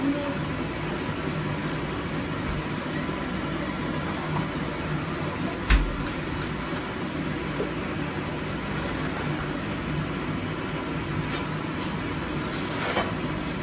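Steady rushing noise of a commercial gas range with its burners lit high under the pots. About six seconds in there is one sharp knock.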